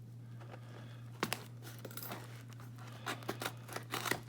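Hands working at a taped-up cardboard package: short scratchy scrapes and rustles of tape and cardboard, one about a second in and a quick run of them near the end, over a low steady hum.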